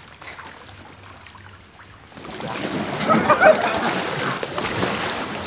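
Pool water splashing and sloshing as a swimmer thrashes with a homemade cardboard boat that is breaking apart and sinking under him, starting about two seconds in, with brief voices.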